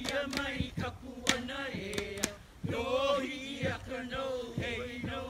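Hawaiian hula chant: a voice chanting in long held tones, accompanied by sharp strikes on ipu gourd drums.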